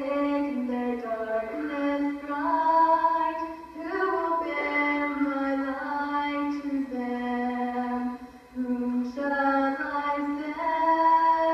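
A young girl singing solo into a microphone, heard through a television's speaker: a melody of held notes in phrases, with two short breaks between them.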